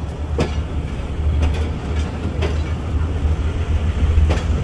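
Passenger train running on the track: a steady low rumble, with a sharp click about once a second from the wheels going over rail joints.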